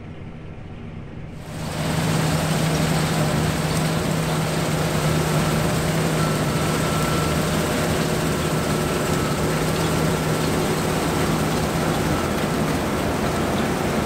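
John Deere T670i combine harvester running while it cuts flat oats: a loud, steady machine drone with a low hum. For about the first second and a half it is heard quieter and duller from the cab, then it jumps sharply in level to the full sound from beside the machine.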